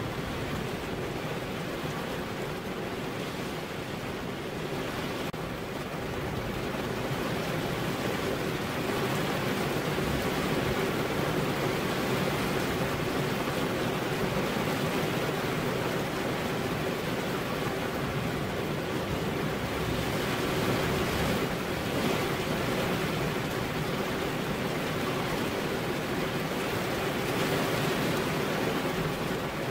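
Steady rain falling on a window, an even hiss that grows a little louder about seven seconds in.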